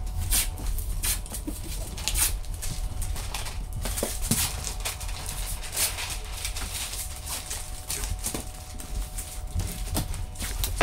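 Masking tape being pulled off the roll and torn in short, irregular rips, about one a second, as strips are pressed along the edge of the protective sheeting on a countertop.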